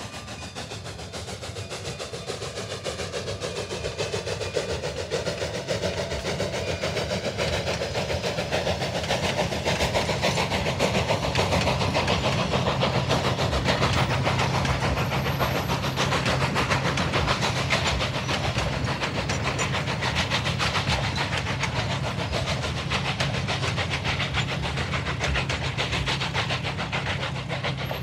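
Narrow-gauge steam train passing: a K-36 class steam locomotive working hard with rapid exhaust chuffs, followed by the rumble and clatter of its passenger coaches on the rails. The sound grows louder over the first ten seconds or so, then stays steady.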